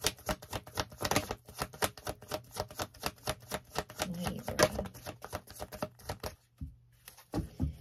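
A deck of tarot cards shuffled by hand: a fast run of card snaps, about five or six a second, that stops about six seconds in.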